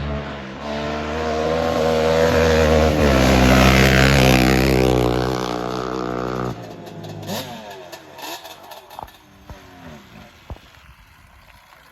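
Honda 400EX quad's single-cylinder four-stroke engine, fitted with an aftermarket exhaust, running hard close by for about six seconds. The engine note drops off sharply, then fades into the distance with a falling pitch and scattered clicks.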